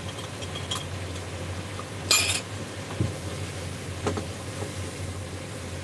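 A metal spoon clinking and scraping against a nearly empty glass jar, scraping out the last of its contents. There is a short, louder clatter about two seconds in, then a couple of light knocks.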